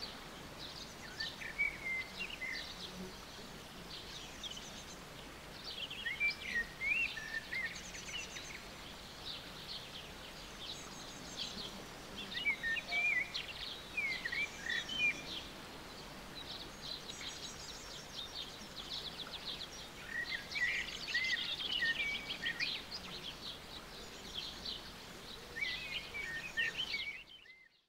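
Songbirds singing, with many short chirps and quick trills scattered throughout over a steady faint outdoor hiss; the sound fades out near the end.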